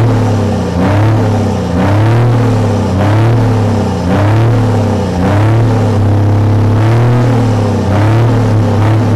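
Scania 124L 440's straight-six diesel engine revved repeatedly at a standstill, in short blips about once a second, held steadier for a second or so past the middle.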